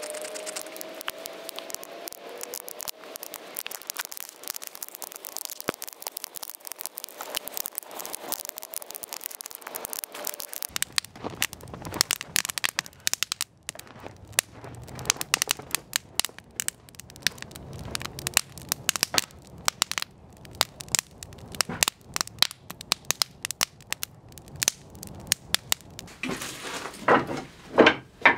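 Split kindling fire catching and burning, with dense crackling and sharp pops throughout. About eleven seconds in a low rumble joins the crackle, and a few louder knocks come near the end.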